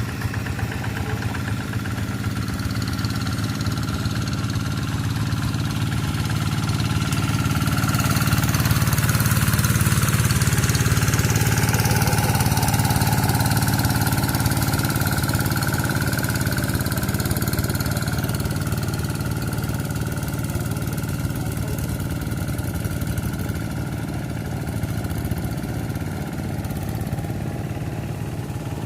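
Quick TL800 two-wheel hand tractor's Kubota RD85 DI single-cylinder diesel engine running steadily. It grows louder toward the middle and then eases off.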